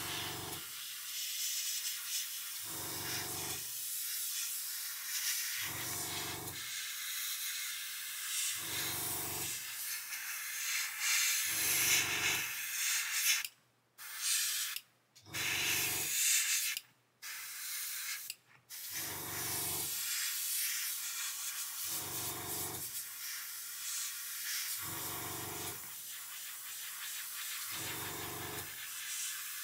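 Airbrush spraying a thin acrylic paint mix, a steady hiss of air broken by four short pauses in the middle as the trigger is let off. Under it a low hum pulses about every three seconds.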